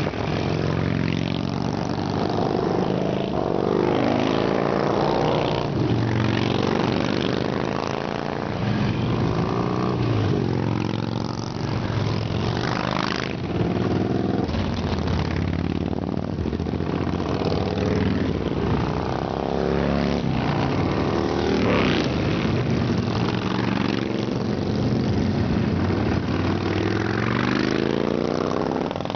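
A procession of large cruiser and touring motorcycles riding past one after another, their engines running together in a continuous rumble. Each bike's note swells and its pitch drops as it goes by.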